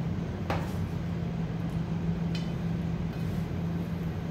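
Steady low mechanical hum in the room, with two light clicks as the aluminium pizza tray is handled, the second with a short metallic ring a little past halfway.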